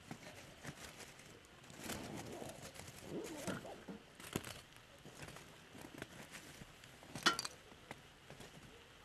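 Wood campfire crackling under a grill, with scattered small pops and one sharp pop about seven seconds in.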